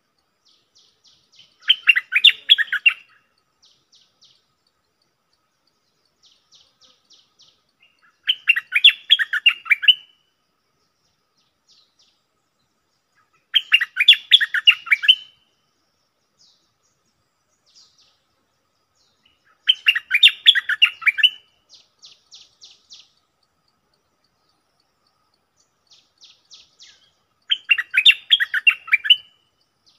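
Caged stripe-throated bulbul singing five loud song phrases, each a quick run of notes lasting about a second and a half and coming roughly six seconds apart. Fainter, higher chattering comes between the phrases.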